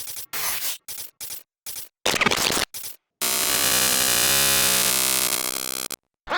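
Digital glitch transition sound effects: choppy stuttering bursts of static broken by sudden dropouts, then a long harsh buzzing static that cuts off abruptly.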